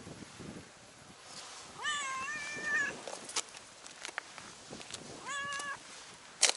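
Tabby stray cat meowing twice: a long, drawn-out meow about two seconds in and a shorter one about five seconds in. A few light taps between them, and a sharp click near the end.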